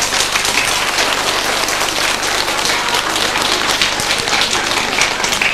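Applause: a roomful of young children and a few adults clapping their hands.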